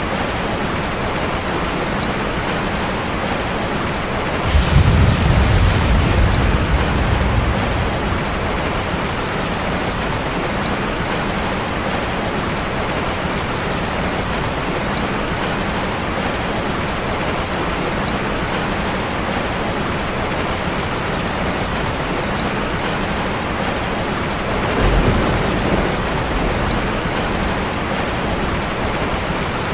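Steady rain falling, with two rolls of thunder: a loud rumble about four seconds in that lasts a few seconds, and a shorter, softer one near the end.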